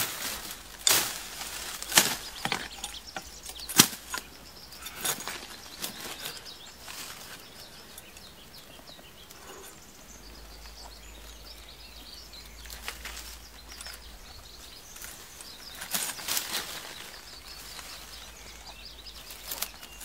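A hand blade chopping through weeds and ferns: a run of sharp slashes and chops in the first five seconds or so, then rustling of the brush, with a few more chops near the end.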